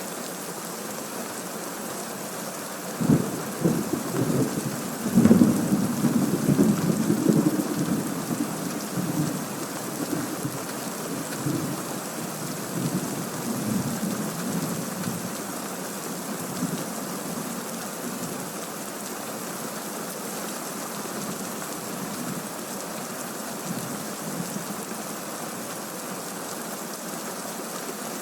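Thunderstorm: steady rain, with a thunderclap about three seconds in that rolls into rumbling thunder, loudest a couple of seconds later and dying away over the next ten seconds.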